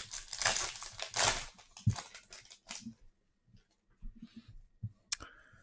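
A trading card pack wrapper is torn open and crinkles for about three seconds. Softer handling noises follow as the cards are pulled out, with a sharp click near the end.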